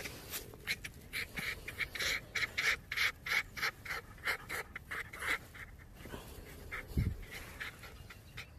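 A fox being tickled, making quick breathy huffs in fast runs, thickest in the first half and thinning out later. A low thump about seven seconds in.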